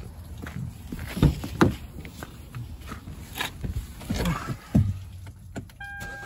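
Footsteps and several sharp knocks and thumps, uneven in spacing, from a person moving around the car. Near the end a steady electronic tone begins.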